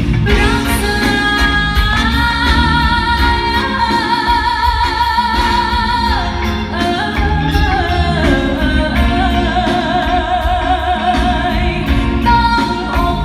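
A woman singing a Thai ballad live into a microphone over backing music, holding two long notes with a wide vibrato, her pitch stepping down between them. Heard from the audience in a large concert hall.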